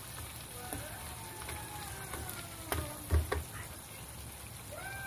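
Peppered chicken sauce sizzling gently in a frying pan while a wooden spoon stirs it. There are a few soft knocks of the spoon against the pan, the loudest a little past three seconds in.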